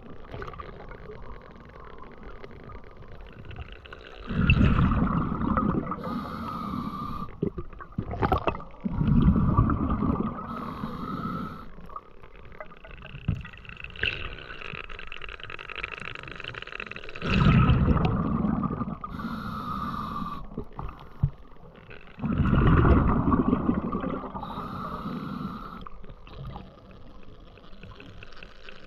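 Scuba breathing through a regulator underwater: a quieter hissing draw alternates with a rumbling gush of exhaled bubbles four times, each gush lasting about two seconds.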